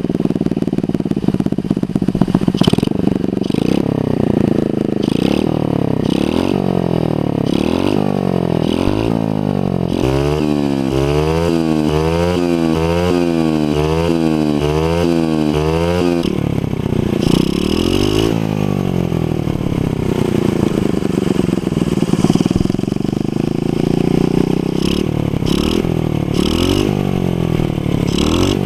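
Skyteam Dax 50cc four-stroke single-cylinder engine through a GP Custom exhaust, revving up again and again in rising sweeps as it accelerates. For about six seconds in the middle the throttle is blipped quickly and evenly, about twice a second.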